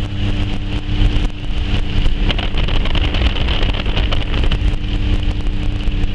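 Heavy storm wind buffeting a moving car, over steady engine and road hum, with a dense crackle of sharp ticks throughout.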